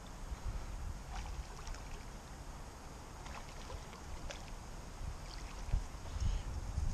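Wind rumbling on the microphone, with a few faint splashes and ticks at the water's surface from a hooked carp being played close in.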